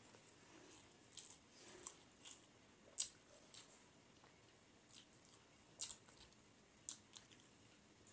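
Close-up eating sounds of rice and fish curry eaten by hand: wet mouth smacks and clicks of chewing, and squelching as fingers mix rice into the curry on the plate. Scattered sharp clicks, the loudest about three seconds in.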